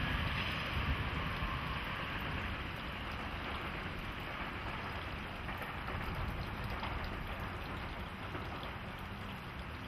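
Steady hiss with a low hum from electric locomotives standing powered up, slowly easing in level.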